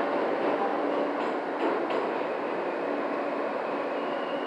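New York City subway car heard from inside as the train comes into a station: a steady rumble of wheels on track, with a few sharp clicks about a second and a half in and a faint high steady tone coming in near the end.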